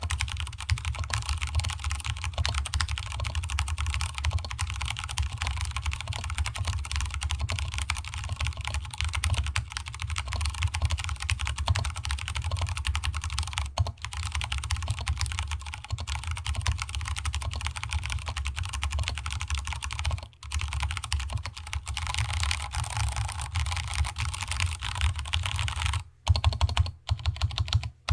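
Continuous fast typing on a Vortex Cypher keyboard with Cherry MX Brown tactile switches and DSA-profile keycaps, the desk adding a hollow resonance. The typing breaks off near the end into a few separate, louder keystrokes with short pauses between them.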